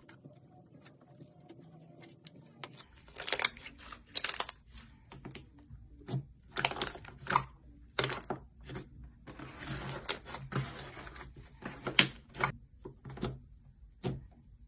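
Slime being mixed and worked, in irregular short bursts that begin about three seconds in, with a longer continuous stretch of noise around the middle.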